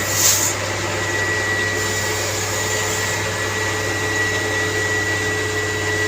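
Steady machinery noise of a concrete mixer truck being loaded with concrete, with a constant hum and whine throughout. A short burst of hiss comes right at the start.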